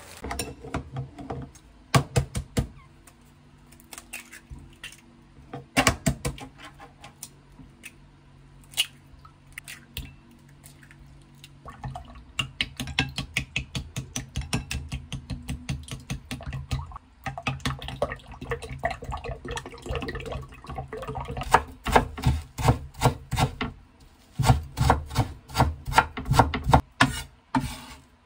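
Raw eggs being beaten with a wooden spoon in a glass bowl: quick, rhythmic clicks and taps of the spoon against the glass, about four or five a second. Near the end, a knife chopping on a wooden cutting board.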